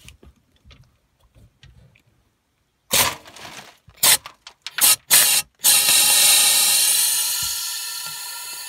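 Handheld 20-gram gas-cartridge drain gun blasting through a dirty condensate trap to flush it: a few short, sharp bursts about three seconds in, then one long hiss that slowly fades.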